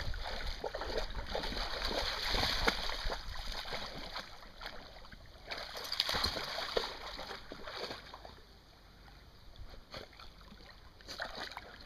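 Flat-coated retriever wading and splashing through shallow lake water. The splashing is heaviest in the first few seconds and again around six seconds in, then eases off, with a short splash near the end.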